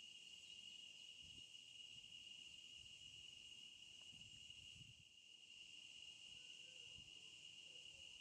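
Faint, steady high-pitched insect chorus with an unbroken drone.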